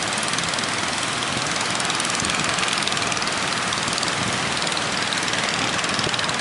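A fishing boat's engine running steadily at sea, with the rush of wind and waves mixed in.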